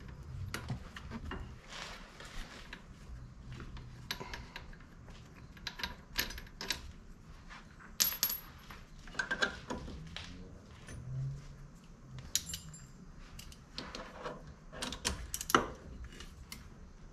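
Metal hand tools and loose bolts clinking and tapping against the steel hub and suspension parts, in scattered sharp clicks with a few quick runs of clicks.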